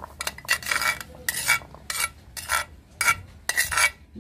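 A metal spoon scraping boiled chickpeas out of a clay bowl onto a steel plate, in about eight short scrapes with soft patters of chickpeas landing.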